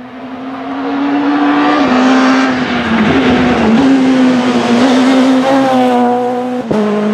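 Peugeot 207 rally car's engine running hard at high revs as the car comes closer and passes. The pitch stays level with a few brief dips, and there is one sharp crack near the end.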